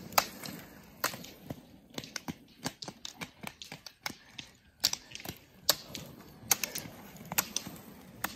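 Roller-ski pole tips clicking sharply on asphalt with each pole plant of a skier skating on roller skis: an irregular run of clicks, a few much louder than the rest.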